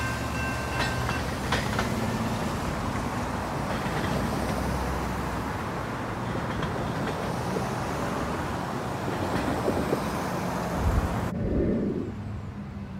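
Road traffic driving over a railroad crossing: an RV and cars passing by, with the crossing's warning bell ringing at first and stopping about a second in. Near the end the traffic sound cuts off abruptly, replaced by a duller, quieter background.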